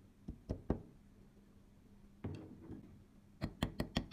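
A hand tool knocking sharply on a steel Astra 4000 Falcon pistol frame during reassembly. There are three quick knocks, then a softer clatter a little over two seconds in, then a fast run of knocks near the end at about five a second.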